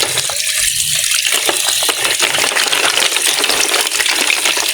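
Water running from a tap in a steady gush while golden apple snails are rinsed under it, their shells clinking against each other.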